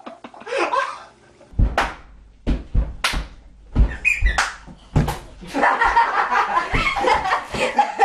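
A string of sharp slaps and thuds, about eight in three seconds, followed by loud laughing and shouting.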